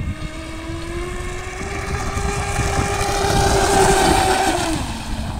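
RC hydroplane's 3670-size 2650kv brushless motor whining at full throttle, driving its propeller through a flexible shaft, with the boat's hull and spray hissing on the water. The whine climbs slightly in pitch and grows louder, is loudest about four seconds in, then drops in pitch and fades near the end.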